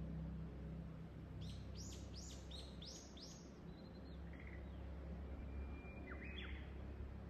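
Wild birds singing: a quick run of about six high, sweeping notes about a second and a half in, then scattered shorter calls and a brief held whistle, over a steady low background rumble.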